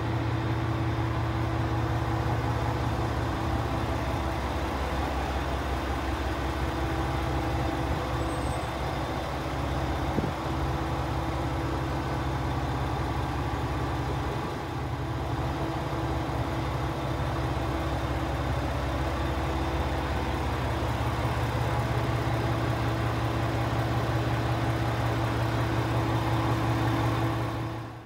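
Diesel engine of a Yuri Kogen Railway YR-3000 series railcar idling: a steady low hum with a droning tone above it, unchanging throughout. There is a single knock about ten seconds in, and the sound cuts off abruptly at the very end.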